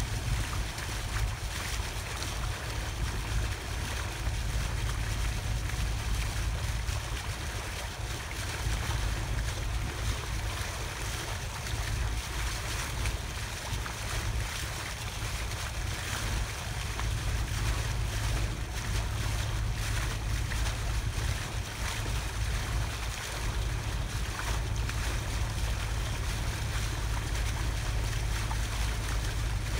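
Boat underway: a steady low rumble with water washing past the hull and wind buffeting the microphone.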